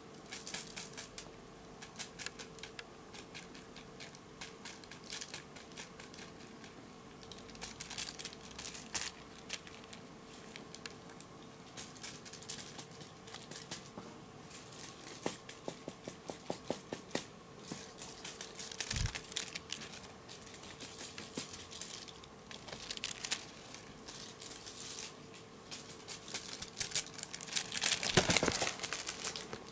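A cat playing with a toy: scattered crinkling and light clicks as it paws at the toy and pounces, with a busier, louder burst of crinkling near the end.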